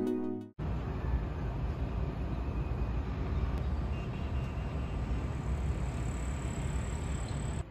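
Steady, even hum of distant city traffic. The tail of soft background music cuts off about half a second in.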